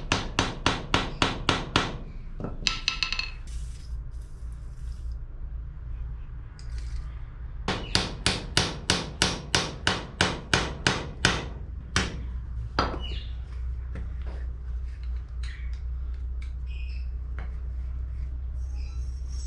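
Hammer tapping a stuck headset part off a mountain bike's suspension fork steerer, in quick even strikes at about four a second. There is a run at the start and a longer run about eight seconds in, then one last strike and a few lighter knocks.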